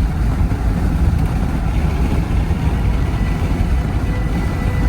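Steady low rumble of a vehicle on the move, engine and road noise heard from inside the cabin.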